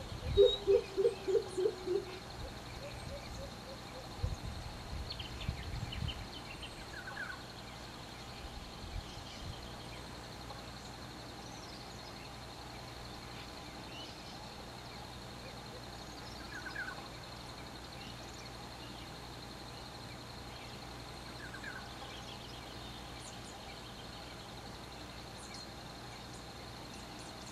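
Pheasant coucal calling: a quick run of about eight deep, evenly spaced notes that fall slightly in pitch, lasting about two seconds at the start.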